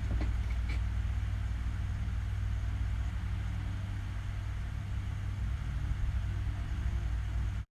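Steady low rumble, with a few light clicks about the first second, cutting off abruptly near the end.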